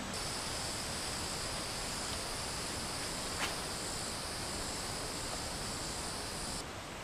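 Insects buzzing in a steady, high-pitched chorus over a soft outdoor hiss, cutting off suddenly near the end. A single sharp click sounds about three and a half seconds in.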